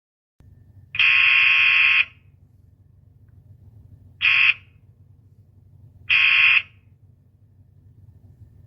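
Old-fashioned doorbell buzzing three times: a press of about a second, a short one, then one of about half a second. Each buzz holds one steady pitch.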